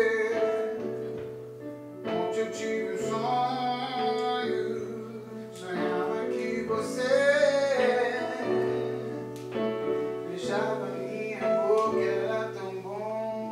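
A slow song sung to electric keyboard accompaniment: held chords under a singing voice, with vibrato on the long notes.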